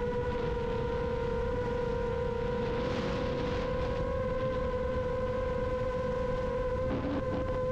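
FPV quadcopter's motors and propellers whining at a steady pitch that lifts slightly about three seconds in, with wind rushing over the onboard camera's microphone.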